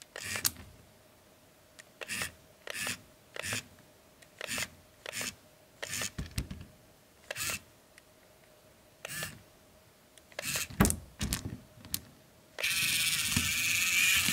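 Miniature tracked model tractor clambering over a pile of tiny clay bricks: short bursts of clicking and clattering from its tracks on the bricks, about one every half second to second. Near the end a louder steady hissing noise sets in.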